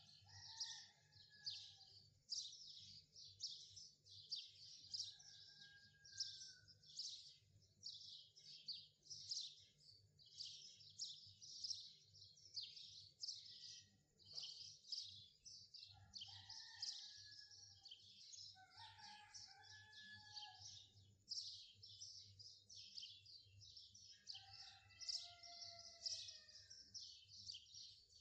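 Faint birdsong: rapid, continuous high chirping and twittering, with a few longer whistled notes now and then.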